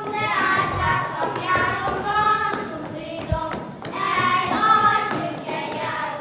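A group of children singing a folk song together, with one low thud about three seconds in.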